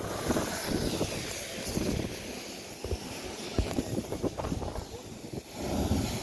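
Sea swell surging through a rock blowhole, gushing up as spray with a low rumble near the start and again near the end. Wind buffets the microphone throughout.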